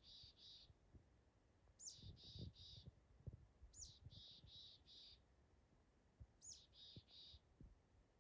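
A small songbird singing a short repeated phrase four times, about every two seconds: a high note sweeping downward, then two or three buzzy notes. Faint low taps sound underneath.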